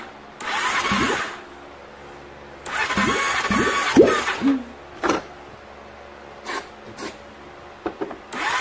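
Kawasaki Brute Force 750's V-twin engine cranked on its electric starter in repeated bursts: a long crank about three seconds in, then short stabs, with a sharp pop around five seconds. It is the first start attempt after a cylinder and head rebuild, run with no exhaust fitted, and the engine is trying to fire.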